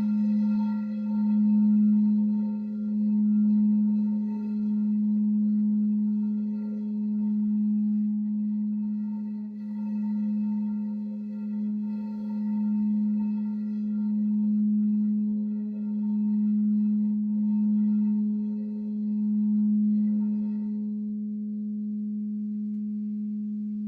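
Singing bowl sounding a sustained low tone with fainter ringing overtones, swelling and ebbing about every two seconds. Near the end the higher overtones fade away, leaving the low hum.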